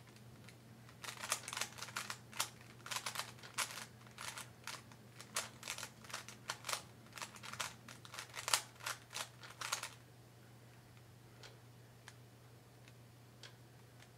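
Rubik's Cube being turned fast by hand: a rapid clatter of plastic clicks and snaps from the layers twisting, stopping abruptly about ten seconds in, followed by a few scattered faint clicks.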